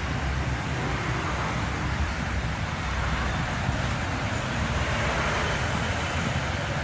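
Steady traffic noise of cars and motorbikes on the toll road, a continuous rumbling wash of passing vehicles that swells a little around the middle.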